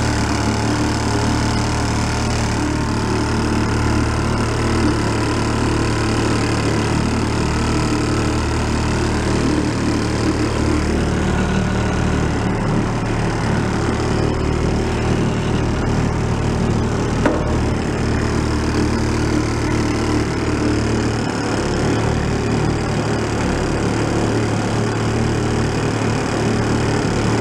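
1937 Sears Waterwitch 2.5 hp two-stroke outboard motor running steadily at one speed, under way driving a small boat.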